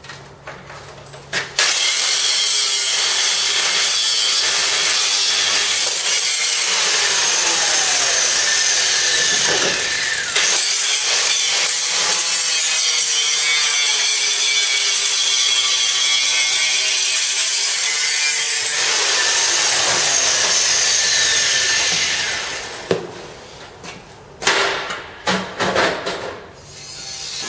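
Angle grinder with an abrasive cut-off disc cutting through a steel radiator mounting bracket, taking about 30 mm off the bottom mount. A loud, steady grinding screech starts about a second and a half in and runs for about twenty seconds, its pitch sliding as the disc bites, with a brief break midway. Near the end come a few short bursts of cutting.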